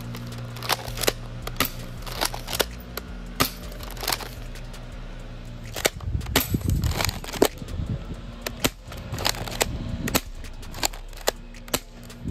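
Double Eagle M56B tri-shot spring airsoft shotgun being racked and fired over and over: a string of sharp snaps and clacks at uneven spacing, thickest about six to eight seconds in.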